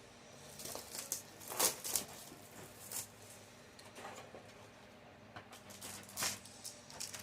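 Trading-card booster packs being handled: the foil wrappers crinkle and tear and the cards rustle, in a run of short, irregular crackles.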